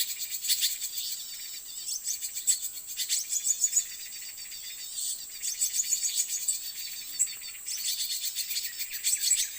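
White-eyes (pleci) chirping rapidly in many short, high notes, with a steady high insect drone underneath.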